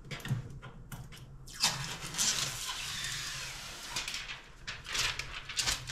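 Protective plastic film being peeled off the top of a new air fryer: a few sharp clicks, then a crackling, tearing rustle for about two seconds, then scattered crinkles near the end.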